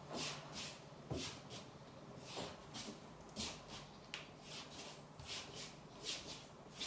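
Short, quick, hissy breaths through the nose and mouth, about two to three a second, the rhythmic breathing of a Pilates exercise.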